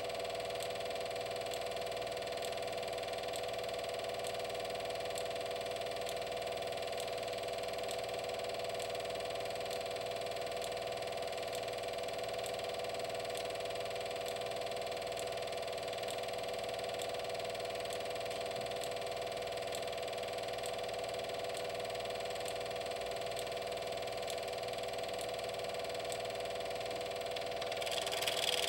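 Film projector running: a steady motor whirr with several fixed pitches and faint, evenly spaced ticks, growing hissier near the end as the film runs out.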